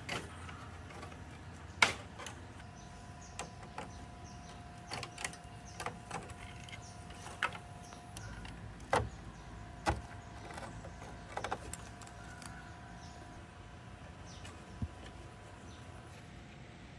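Scattered clicks and knocks of gloved hands moving parts and cables inside a rusted steel computer case, the sharpest about two seconds in. A faint steady hum lies under them.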